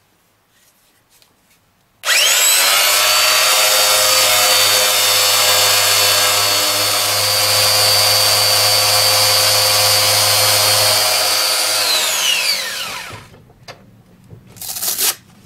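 Porter-Cable electric profile sander with a hook-and-loop sanding disc, switched on about two seconds in and running steadily with a whine as it sands rust off a steel pole-saw blade. It is switched off near the end and winds down, its whine falling in pitch.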